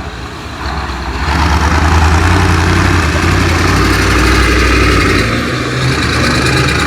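Heavy off-road rally truck's engine running with a steady low rumble, getting louder about a second in and easing off a little past five seconds.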